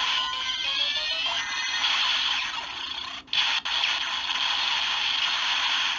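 Kamen Rider Ex-Aid DX Gamer Driver toy with the DX Gashat Gear Dual playing its electronic finisher ('裏技' critical finisher) sound sequence through its speaker, triggered by closing and reopening the driver's lever: a quick rising run of electronic tones, then loud music and effect sounds with a brief break about three seconds in.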